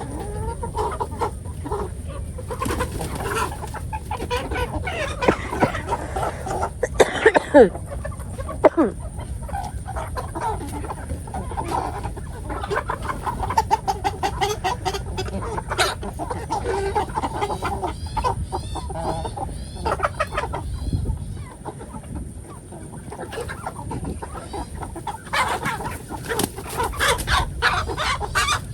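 A flock of chickens clucking and squawking on and off, with the loudest calls about seven to eight seconds in.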